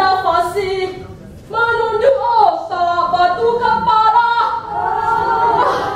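Unaccompanied singing with long, bending held notes and a short break about a second in.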